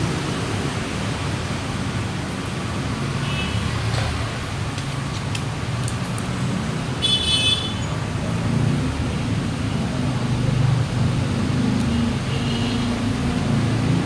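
Lakoni Fresco 130X oil-less air compressor running steadily. A short, high-pitched tone cuts in about seven seconds in, with fainter ones a few seconds before and near the end.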